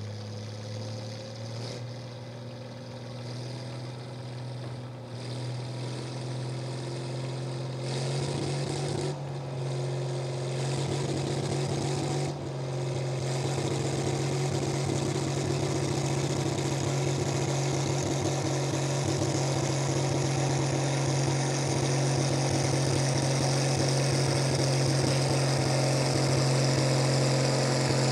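Farm tractor engine running at a steady speed, growing steadily louder.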